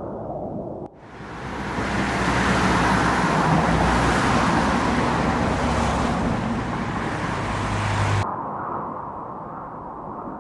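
Street traffic sound effect: motor vehicles driving by, coming in about a second in, holding steady with a low engine hum, and cutting off abruptly near the end.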